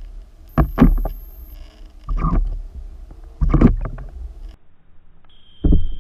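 Underwater sound picked up by a camera in the water: four groups of short, muffled thumps and gurgling rushes over a steady low hum. A thin, steady high whine comes in near the end.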